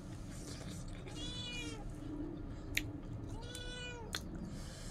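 A domestic cat meowing twice: two drawn-out calls, each rising and then falling in pitch. A sharp click comes between them.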